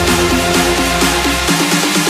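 Electronic dance music: a fast repeating synth riff, with the deep bass dropping out about one and a half seconds in.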